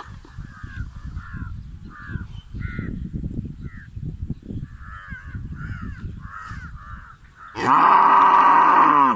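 Animal calls: a run of short, repeated cawing calls over low rumbling noise. Near the end comes one loud, drawn-out call that lasts about a second and a half.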